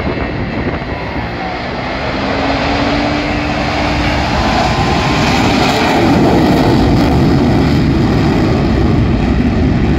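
Four Blue Angels F/A-18 Super Hornets taking off in formation in afterburner: a jet roar that swells over the first few seconds as they roll and lift off, then holds loud and steady as they climb past.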